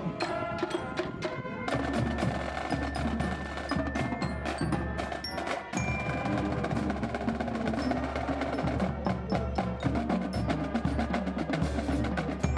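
Marching band playing a percussion-led piece: rapid drum strokes with ringing bell-like tones over a steady low bass.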